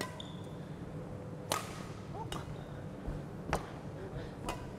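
Badminton rackets striking a shuttlecock back and forth in a rally: several sharp, crisp hits about a second apart.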